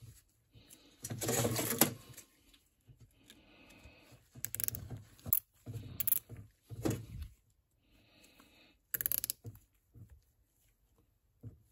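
Nylon zip ties being pulled tight around a rubber CV axle boot, ratcheting in short rasps, with scattered sharp clicks and handling knocks.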